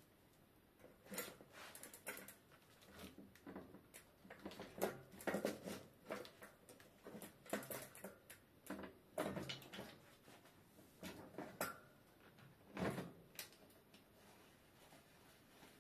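Bicycle chain and rear derailleur being handled as the rear wheel is refitted: irregular light clicks and rattles of the chain going onto the cassette, with a few sharper knocks.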